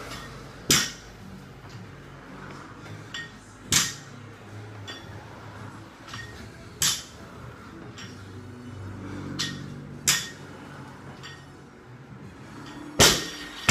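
Sharp slaps about every three seconds while the athlete does jumping reps. Near the end, a loaded barbell is dropped from overhead onto the gym floor with a loud crash and bounces several times.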